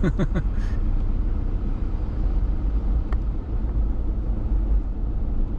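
Car driving slowly, its engine and tyres making a steady low rumble, with a single sharp click about three seconds in.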